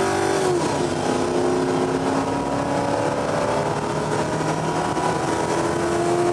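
Car engine running at high revs, its pitch holding steady with a short dip about half a second in.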